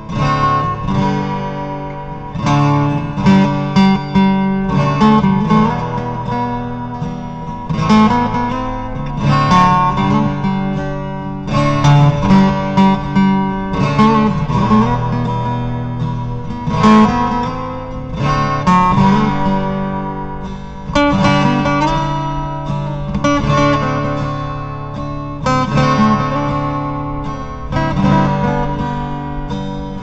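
Instrumental music with acoustic guitar, plucked notes over strummed chords at a steady beat.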